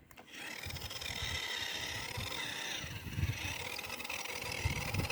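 Toy car's small electric motor whining as its wheels spin in place in beach sand, digging in instead of driving. It starts about a quarter second in and wavers steadily.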